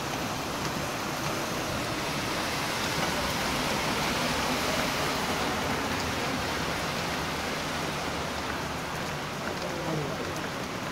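Heavy rain pouring steadily onto a flooded street and lawns, an even hiss that grows a little louder around the middle.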